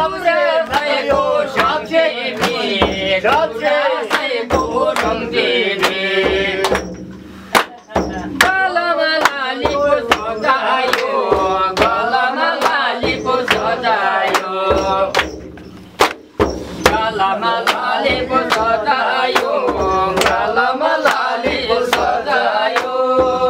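Several voices singing or chanting together in wavering phrases over a steady run of sharp drum-like beats, with short breaks between phrases.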